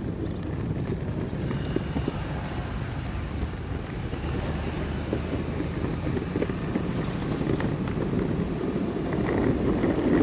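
Skateboard wheels rolling along an asphalt road: a steady rumble with small ticks from the rough surface.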